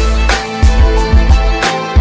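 Background music with a beat: deep bass, drum hits and sustained notes.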